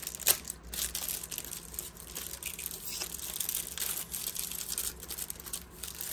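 Clear plastic wrapper crinkling as a pen is handled and worked out of its cellophane sleeve, with irregular sharp crackles.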